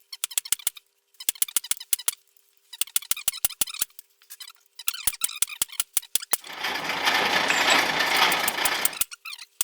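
Power hammer striking hot steel in quick bursts of about eight to ten blows a second, with pauses between the bursts. Over a faint steady hum. For about two and a half seconds near the end a loud rushing noise takes over, then the blows start again.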